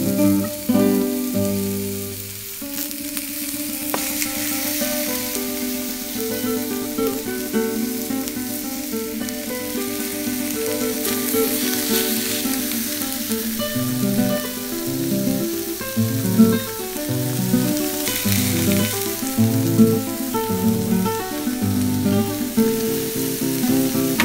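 Seasoned beef ribs and chopped onions sizzling steadily in a baking tray on a grill, under background music.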